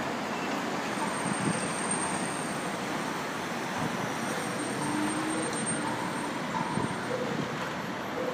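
Steady city street ambience: a continuous hum of road traffic with no distinct events.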